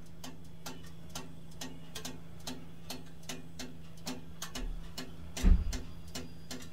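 Electric oven running with a steady low hum while its mechanical timer ticks evenly, about three times a second. One dull thump about five and a half seconds in.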